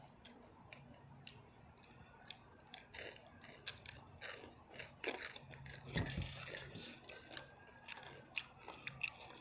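Takis rolled tortilla chips being bitten and chewed, an irregular run of sharp crunches.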